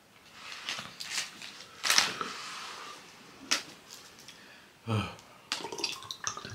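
Crinkling plastic and sharp clicks as a plastic water bottle is handled and opened, the loudest click about two seconds in, then a short low sound about five seconds in and more crinkling as the bottle is tipped up to drink.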